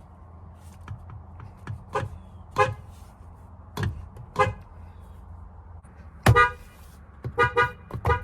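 Car horn sounding in short toots, mostly in pairs, then a longer blast a little after six seconds and a quick run of toots near the end, over a low steady hum.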